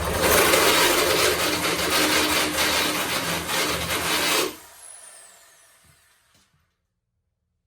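Power drill boring into the wood of a door edge for about four and a half seconds, then stopping suddenly, its motor whining down as it spins to a halt.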